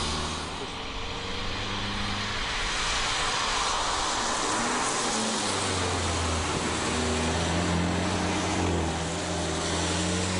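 Abarth 500C's turbocharged 1.4 T-Jet four-cylinder engine running at speed, with its pitch stepping up and down a few times, over steady tyre hiss on a wet road.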